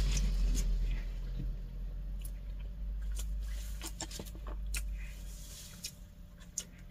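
A person chewing food close to the microphone, with irregular soft mouth clicks while eating stir-fried pork with rice. A steady low hum runs underneath.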